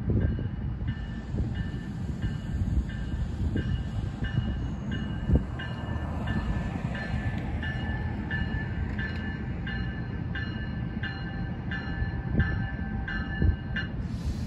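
Railroad grade-crossing bell ringing steadily at about two strokes a second, over the low rumble of an approaching NJ Transit commuter train.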